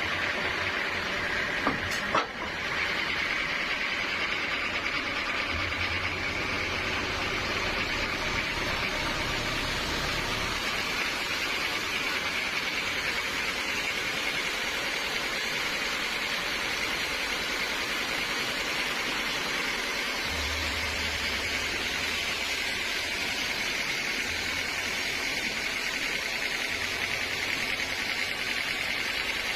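Sawmill saw running steadily through a teak log, a continuous even machine noise, with two sharp knocks about two seconds in.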